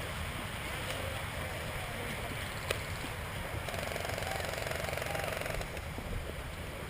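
Steady low rumble and rustle of a helmet-mounted action camera carried by a moving player, with one sharp click about three seconds in.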